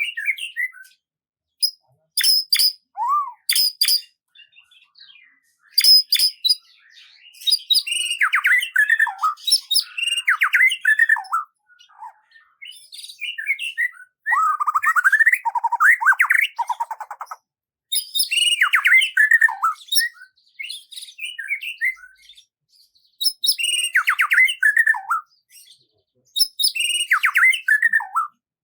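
Songbirds singing: repeated short phrases of quick chirps and downward-sliding whistled notes, each lasting a second or two, with brief silent pauses between them.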